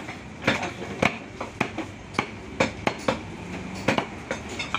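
A butcher's large knife chopping beef into cubes on a wooden chopping block. There are about nine sharp chops at an uneven pace, with a short pause about three seconds in.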